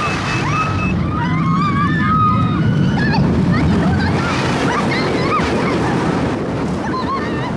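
Wind rushing steadily over the microphone of an onboard camera on a spinning amusement ride. Short, high-pitched cries and yelps from the riders come and go throughout.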